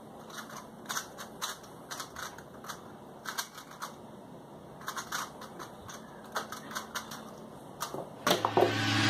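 A 3x3 speedcube being turned by hand: scattered, irregular plastic clicks and clacks of its layers twisting. About eight seconds in, rock music starts and quickly becomes the loudest sound.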